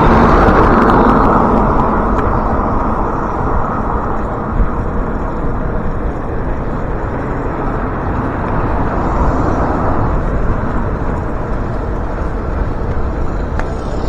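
Road traffic noise: a steady, loud rush of motor vehicles on a main road, loudest at the start and easing off slightly after a couple of seconds.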